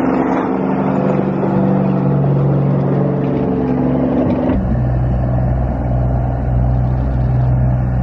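Semi truck's diesel engine running steadily as the truck drives over freshly spread gravel. About four and a half seconds in, the engine note drops abruptly to a deeper, heavier tone.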